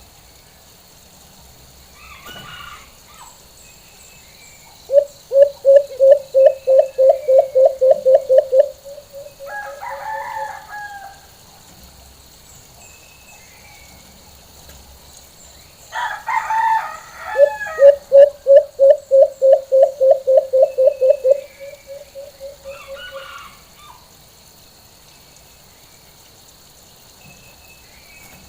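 White-eared brown dove giving its full call twice: a run of loud, evenly spaced low hoots, about three or four a second, trailing off into a few softer notes.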